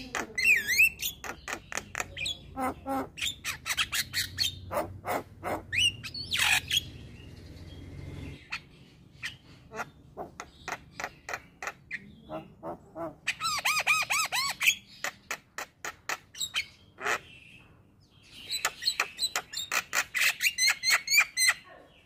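Male Javan myna singing: a long, varied run of harsh clicks, squawks and bending whistled notes. The song thins out for a few seconds after about eight seconds in, then comes back in fast, dense runs of notes, the busiest toward the end.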